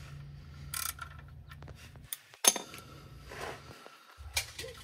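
Scattered metallic clicks and clinks of a combination wrench working the oil drain plug on the oil pan, with one sharp clack about two and a half seconds in.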